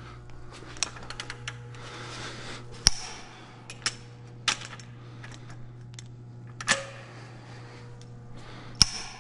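A long torque wrench clicking as the main bearing cap bolts of a Detroit Diesel Series 60 block are torqued. It makes a handful of sharp, separate clicks, the loudest about three seconds in and another near the end.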